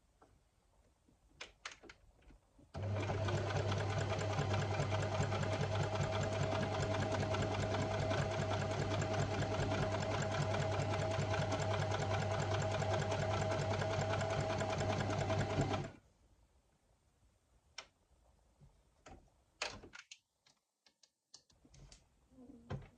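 Electric sewing machine running at a fast, even stitching rate for about thirteen seconds while sewing a seam, starting and stopping abruptly. A few light clicks come before and after the run.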